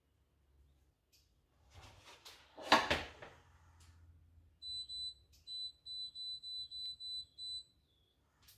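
A pot clatters down onto the hob about three seconds in. Then comes a run of short, high beeps, about three a second for over three seconds, from the hob's touch controls as the heat is turned up high.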